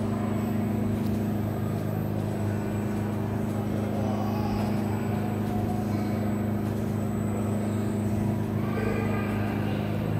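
Flight simulator's engine sound for a single-engine propeller plane: a steady, even drone.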